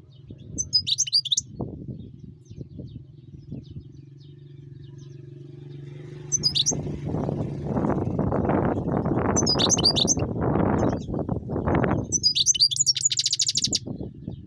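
European goldfinch singing: short phrases of high twittering notes, the last ending in a fast buzzy trill. Under it runs a steady low hum, and a louder low noise from about six to twelve seconds in.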